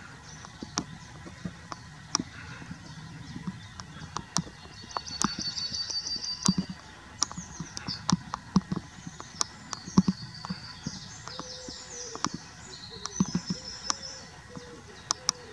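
Songbirds singing in quick runs of repeated high notes, over scattered sharp clicks and taps.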